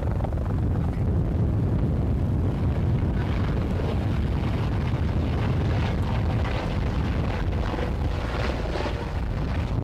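Airbus H130 single-turbine helicopter flying overhead: a steady low rotor thrum with a fast, even flutter. A higher whirring rush grows stronger from about three seconds in as it comes closer.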